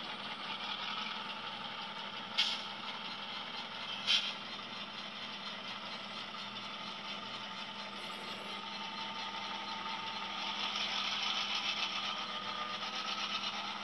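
Tsunami 2 sound decoder in an HO scale GP7 model locomotive playing diesel prime mover sound through its small speaker, with two sharp clicks a couple of seconds apart in the first few seconds. About ten seconds in the engine sound gets louder and rises in pitch as the decoder notches the prime mover up automatically, making it sound labored as the locomotive is held back by a finger on the track.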